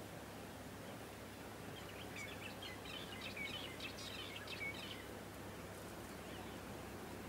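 A bird twittering: a quick run of short chirps lasting about three seconds, over steady low background noise.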